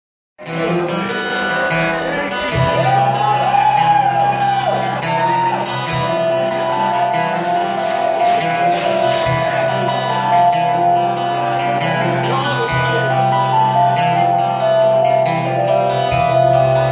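A rock band playing live with no vocals: strummed acoustic guitar over electric bass and synthesizer keyboard. The music starts abruptly about half a second in.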